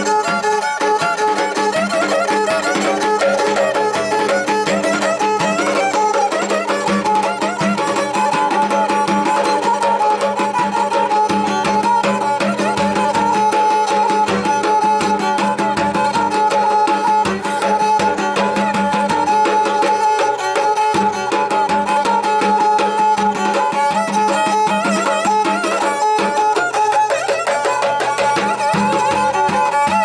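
Traditional Turkish folk music on a small pear-shaped bowed fiddle, held upright and bowed, playing a melody. From about a quarter of the way in it sustains one high note. Hand strokes on a large davul drum accompany it.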